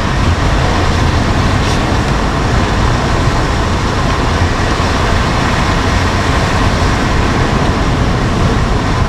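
Steady noise inside a vehicle driving in heavy rain: a low rumble of the car on a wet road, with rain and wind on the body and windshield.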